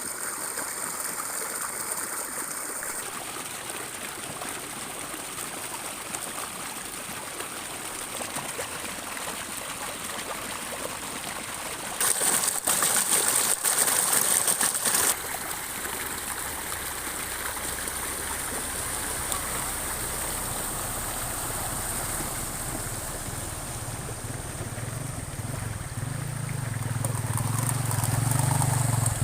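Floodwater rushing steadily, with a louder burst of rushing noise for about three seconds midway. Near the end a low engine hum grows louder as a motor vehicle approaches.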